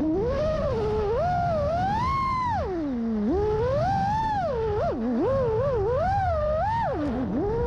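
FPV quadcopter's brushless motors whining, the pitch swooping up and down with every throttle change as the quad manoeuvres, over a low rush of wind.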